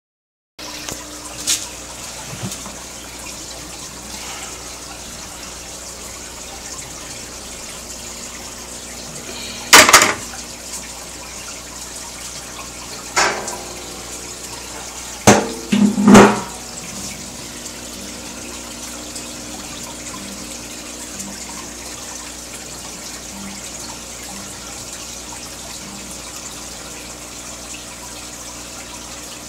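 Aquarium water bubbling steadily from a rising stream of air bubbles, with a few sharp, loud knocks, the loudest about ten seconds in and around sixteen seconds.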